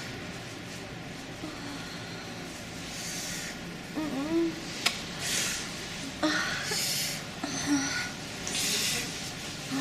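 A person sniffing the air several times in short hissy breaths, with a few brief small vocal sounds between the sniffs and one sharp click.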